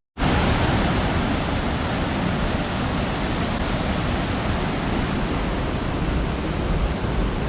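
Waterfall: a loud, steady rush of falling water with a deep rumble underneath.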